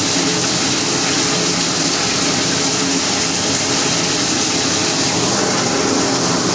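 Steady rush of flood coolant pouring from a PVC return pipe into the coolant tank's strainer, with the Tormach PCNC 1100's flood coolant system running wide open.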